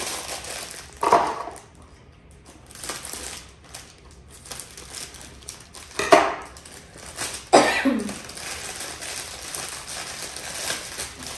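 Clear cellophane gift bag crinkling and rustling as it is handled and opened, with a few louder crackles: about a second in, then twice more a little past the middle.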